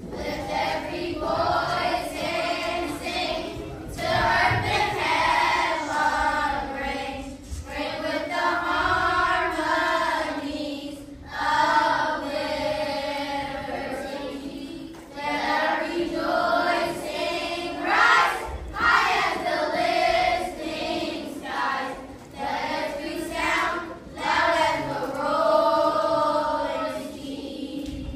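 A choir singing in phrases a few seconds long, with short breaks between them.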